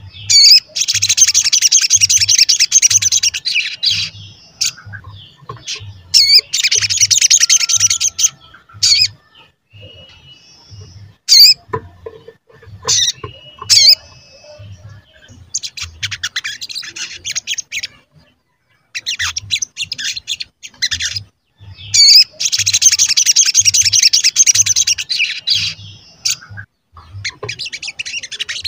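Male olive-backed sunbird singing: loud bursts of fast, high twittering song a few seconds long, broken by short pauses and sharp single 'cuit' calls.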